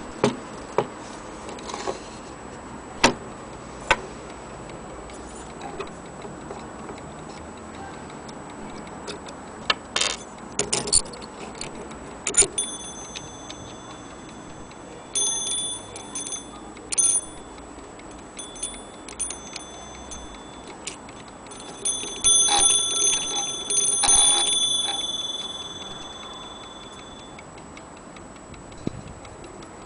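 Antique French striking clock movement, out of its case: sharp mechanical clicks first, then from about halfway its hammer strikes the bell several times. A quick cluster of strikes comes later, and the bell rings on for a few seconds after.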